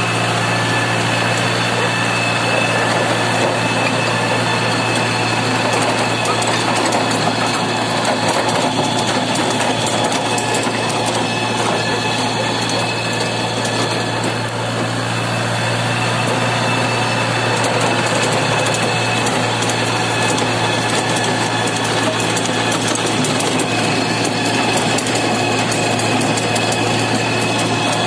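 Compact tractor's diesel engine running steadily at constant speed while driving a rear-mounted Şahtiman 155 rotary tiller, with a fast mechanical rattle over the engine's steady hum.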